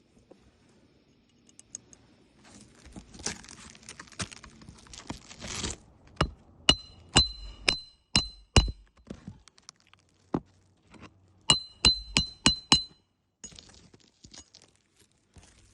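A hammer striking metal on a shingle roof: a few seconds of scraping, then a run of six sharp ringing strikes and, after a pause, five more in quick succession.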